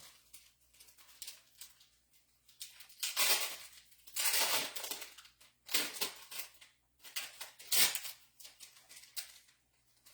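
Paper and cardstock being rustled and shuffled by hand, in several irregular bursts, the loudest about three to five seconds in.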